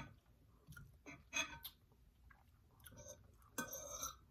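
Quiet eating sounds: a few soft, short mouth clicks of chewing, then, about three and a half seconds in, cutlery scraping across a plate for about half a second.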